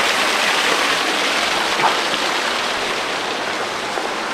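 Small waterfall pouring over rocks into a shallow stream: a steady rushing, splashing hiss, a little softer near the end.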